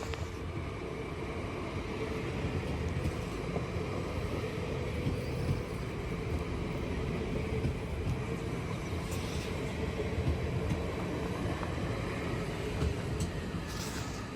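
Train moving through a station: a steady low rumble with a held hum that grows louder about two seconds in. Short hisses come around nine seconds in and again near the end.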